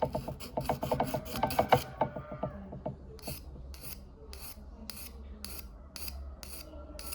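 Small abrasive sharpening stone rubbed against the steel prongs of a pole-spear paralyzer tip: a quick run of short strokes for about two seconds, then slower, even strokes about twice a second.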